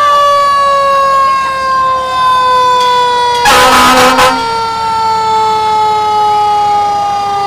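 Fire ladder truck's siren winding down, its pitch falling slowly and steadily, with a short, loud air-horn blast about three and a half seconds in.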